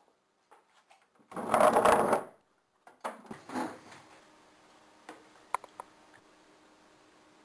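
A wooden chair scraped across a hardwood floor for about a second. Softer shuffling and scuffing follow as someone sits down, then a few light clicks.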